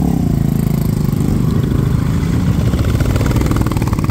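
Motorcycle engines running at low road speed as a group of bikes rides off along a gravel road, a steady pulsing engine sound.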